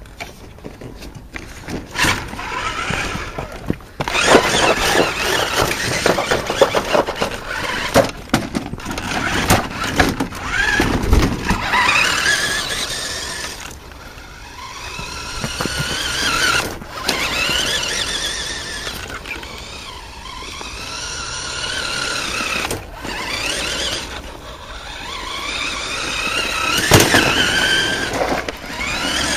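Radio-controlled Hummer H2 model truck's electric motor and gearbox whining, the pitch rising and falling over and over as the truck speeds up and slows. A few sharp knocks come through as it bounces over the ground.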